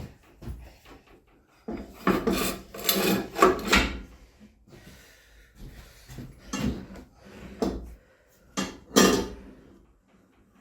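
Scraping and clunking of a bar clamp being fitted and worked against a lawnmower deck, in irregular bursts, with the busiest stretch about two to four seconds in and another near nine seconds.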